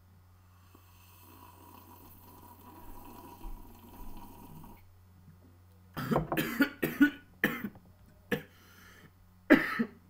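A man coughing hard after a swallow from a glass: a quick run of about four or five coughs, then two more single coughs.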